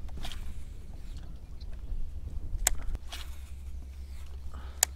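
Steady low wind rumble on the microphone, with two sharp clicks, about two and a half seconds in and near the end.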